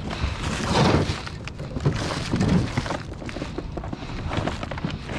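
Wind buffeting the microphone in uneven gusts, with scattered knocks and rustles of handling on the kayak.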